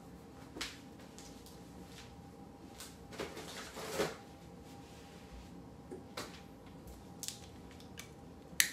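Faint, scattered clicks and light rustles of small objects being handled, about half a dozen at irregular moments, with a sharper click near the end, over a faint steady hum.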